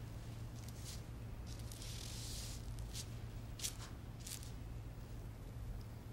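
Calligraphy brush swishing across paper in a few separate strokes, the longest about two seconds in, over a steady low hum.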